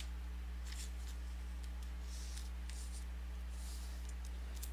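Faint soft scraping and rustling of a trading card being handled and slid into a plastic sleeve, a few short strokes, over a steady low electrical hum.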